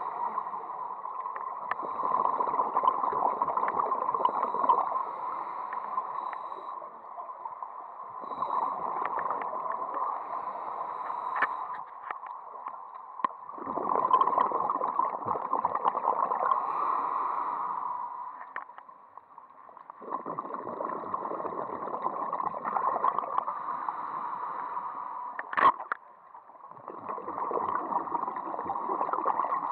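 Scuba regulator exhalations heard underwater: five rushing bursts of bubbles, each lasting a few seconds, about every six seconds, with quieter inhale gaps between. A single sharp click sounds near the end.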